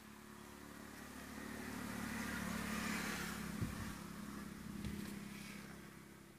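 A motor vehicle's engine passing by, growing louder to a peak about halfway through and then fading away. A couple of soft low thumps come near the middle.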